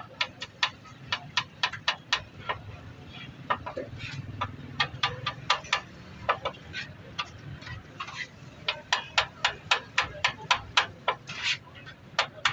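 Metal spatula chopping chicken on a flat-top griddle: rapid sharp clacks of blade on metal, about four or five a second, in runs with short pauses between them.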